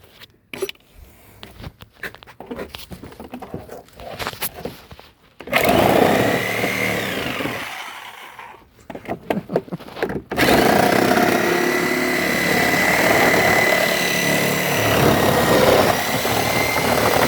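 A power saw cutting through the plastic body of a Power Wheels ride-on toy car. After a few knocks and handling clatter, the saw runs in a short burst about five seconds in, stops, then runs steadily with a constant whine from about ten seconds in.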